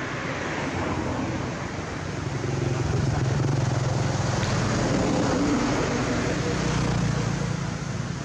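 A low vehicle-engine hum that swells about two and a half seconds in and eases off near the end, with voices faintly under it.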